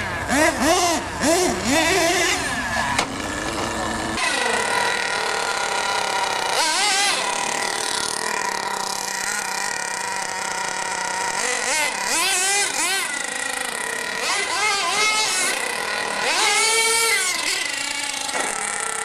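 Small combustion engines of radio-controlled monster trucks revving and dropping back, the pitch rising and falling again and again as the throttle is worked, over a steady engine tone.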